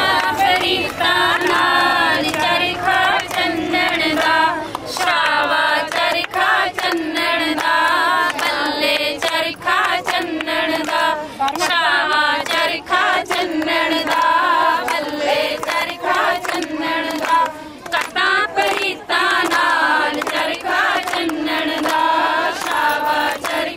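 Group of women singing a Punjabi folk song together, with hand claps throughout.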